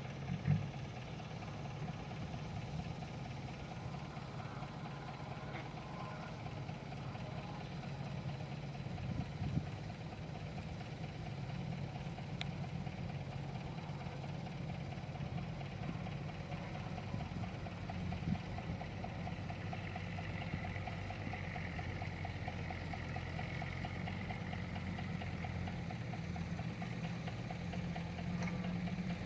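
Diesel engine of a Kobelco SK120 Mark 3 hydraulic excavator running steadily while it works, with a few brief knocks.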